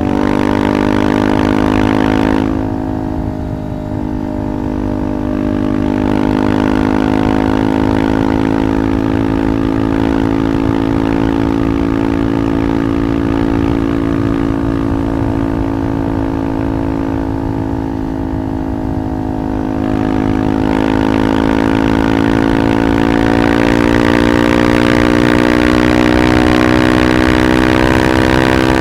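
KTM 390 Adventure's single-cylinder engine through a Red Rooster aftermarket exhaust, running at a steady cruise. It eases off briefly a couple of seconds in, then holds steady and pulls a little harder over the last third, its pitch rising slowly.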